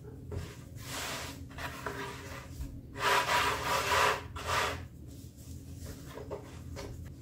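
Cinnamon bun dough being kneaded by hand on a floured wooden board: a series of rubbing, scraping strokes, loudest from about three to five seconds in.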